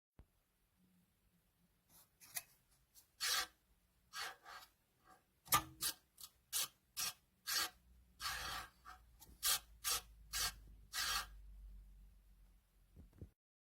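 A run of about fifteen short scraping strokes at an uneven pace, each a brief hiss-like rasp, with a faint low rumble under the later ones.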